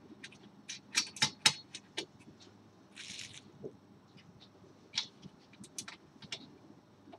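Small M4 nuts and screws being handled and fitted to the brackets of a metal 3D printer frame: scattered small metallic clicks and rattles, with three sharper clicks about a second in and a brief rustling scrape about three seconds in.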